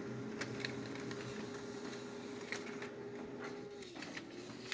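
Brother MFC-9340CDW printer running a copy job: a steady mechanical hum with light clicks. About four seconds in the hum dips in pitch and rises again as the printed page feeds out.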